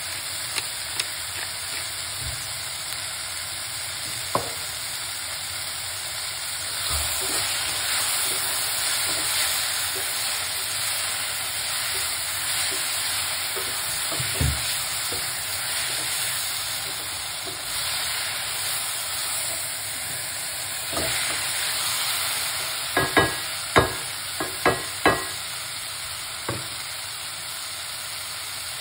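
Sliced peppers and onions sizzling as they fry in an aluminium pot, stirred with a wooden spoon. Near the end the spoon knocks sharply against the pot five or six times, each knock with a short metallic ring.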